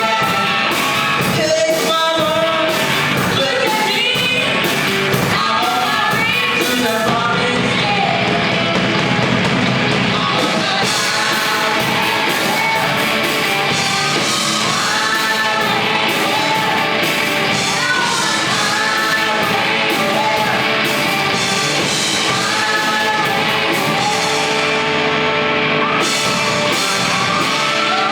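Live band playing a song with a lead singer, continuous and loud throughout.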